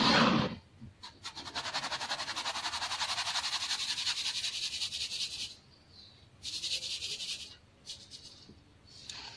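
Metal mesh sieve of baking soda shaken fast, the powder rasping and rattling through the mesh in a quick even rhythm for about four seconds, then a shorter second burst. A thump comes right at the start.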